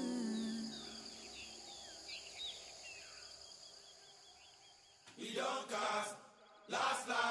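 A song's last note fades out, then faint birds chirp. About five seconds in, voices start chanting in short, loud phrases.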